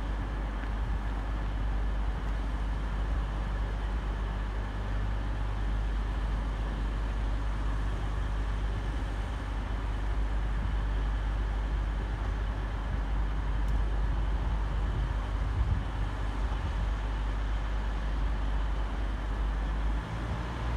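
Diesel multiple unit train's engines running steadily as it draws slowly into the station, a low hum whose pitch shifts near the end.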